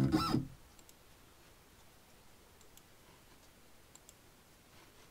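Guitar music cuts off about half a second in, followed by faint, scattered clicks of a computer mouse being used to set up a CNC tool path.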